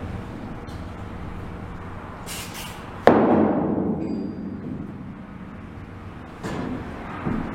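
Workshop handling noises: a brief scrape, then one sharp knock about three seconds in that rings and fades over a second or so, with a couple of softer knocks near the end.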